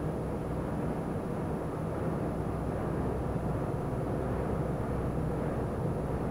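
Steady engine and road noise of a lorry cruising on a motorway, heard from inside the cab: an even low rumble with no change in speed.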